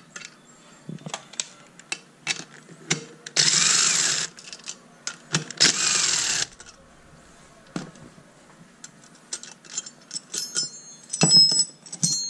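Cordless power driver spinning a socket on the bolt that holds an LS valve spring compressor to the cylinder head, in two bursts of about a second each. Light metal clicks of the tool being handled throughout, and ringing metal clinks near the end as the compressor's steel pieces are set down.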